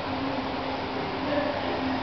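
Steady hiss and hum of an aquarium hall's room noise, with faint, indistinct voices of visitors in the background.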